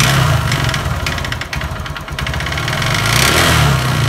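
Honda Verza's air-cooled single-cylinder engine being revved up twice, running rough with a kletek-kletek rattle that follows the throttle. The mechanic suspects a scored, damaged piston, possibly the connecting rod.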